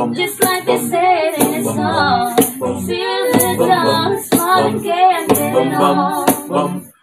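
A cappella group of women's and men's voices singing a pop medley in close harmony, with a sharp percussive hit about once a second keeping the beat.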